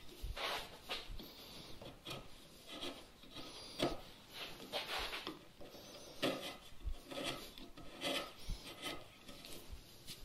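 A chisel paring across the end grain of a pine bench leg in a run of short scraping strokes, about one to two a second and irregularly spaced. It is taking down a small step left where the saw cut wandered from the marked line.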